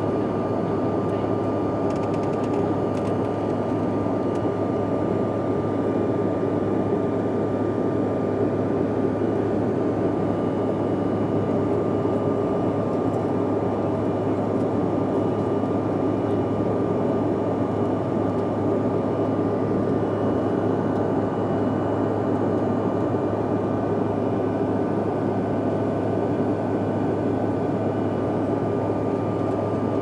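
Steady cabin noise of a jet airliner in flight: an even rush of engine and airflow noise with a thin steady whine riding over it.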